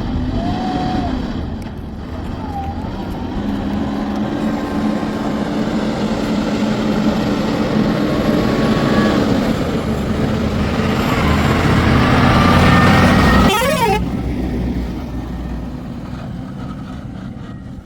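Heavy diesel engine running under load. It grows louder until about three quarters of the way through, then eases off.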